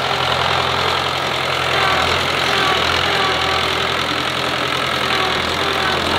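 Small farm tractor's engine running steadily at low revs while its tipping trailer is raised to dump a load of harvested mung bean plants.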